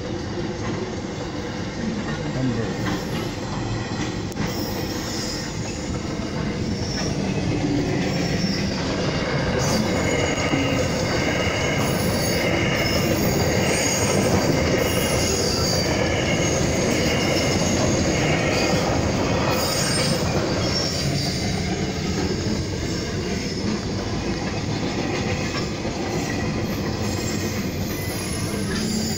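Container wagons of a KiwiRail freight train rolling past with a continuous rumble of wheels on rail. High-pitched wheel squeal comes and goes, strongest in the middle.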